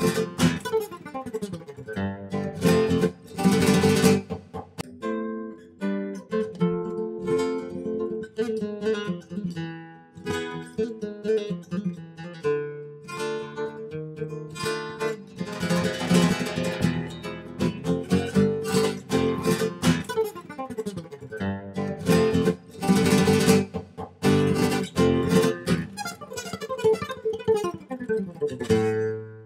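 Acoustic guitar music, plucked melody notes broken by strummed chords.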